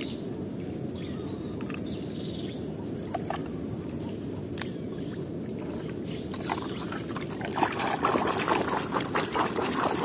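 Hand stirring and splashing muddy water in a plastic tub, over a steady low rushing noise. The sloshing grows busier and louder in the last few seconds.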